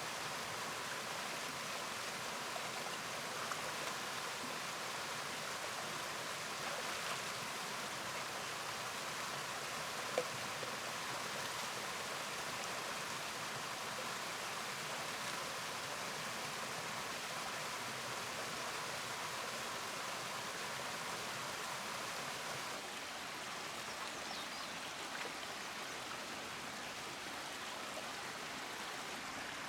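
River water running steadily, an even rushing hiss, with a single short tick about ten seconds in.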